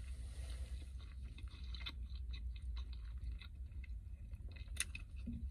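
Close-up chewing of a bite of a fried meat belyash: soft wet smacks and small clicks of the mouth working on the dough and filling, over a steady low rumble.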